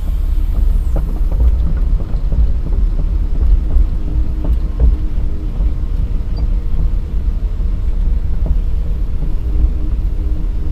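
Kobelco SK210 excavator's diesel engine running steadily, a constant low rumble.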